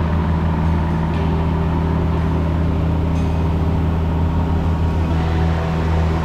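Cessna 150's Continental O-200 four-cylinder engine and propeller droning steadily in flight.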